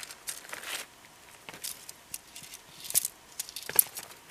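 Sections of a folding tent pole being unfolded and snapped together: a run of light metallic clicks and clinks with rustling, the sharpest about three and four seconds in.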